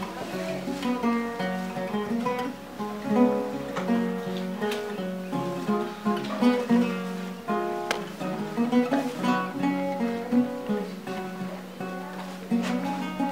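Background music: an acoustic guitar plucked and strummed, with a run of notes throughout.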